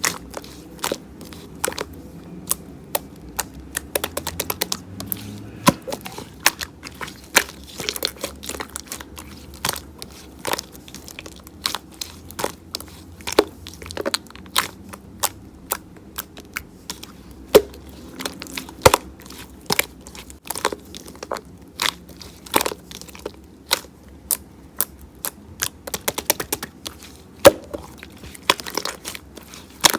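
Elmer's glue slime being pressed and worked by hand, trapped air popping out in sharp, irregular clicks and pops, a few each second.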